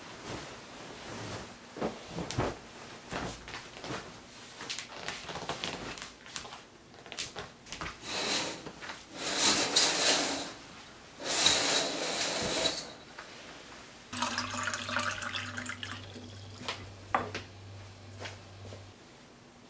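Bedding rustling and light knocks, then curtains drawn open along their rail in two long swishes, the loudest sounds. Near the end a low steady hum with a hiss runs for about five seconds.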